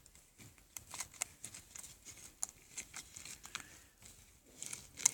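Homemade fluffy slime made with shaving foam, squeezed and worked by hand. It gives off faint, irregular crackles and tiny pops, the typical fluffy-slime noise.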